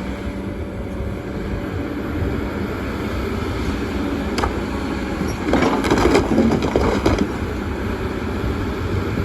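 A Kobelco excavator's diesel engine runs steadily. A single knock comes a little past four seconds in. From about five and a half seconds to seven seconds there is a louder clatter of stones knocking and scraping as the bucket turns them over.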